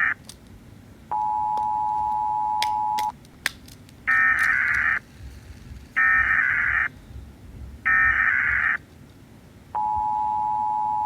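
US Emergency Alert System alarm: the steady two-tone attention signal sounds for about two seconds, then three harsh buzzing data bursts follow about a second apart, each just under a second long, and the two-tone signal starts again near the end.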